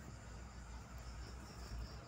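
Insect chirping: a run of short, high chirps, about five a second, starting about a second in, over a steady low rumble.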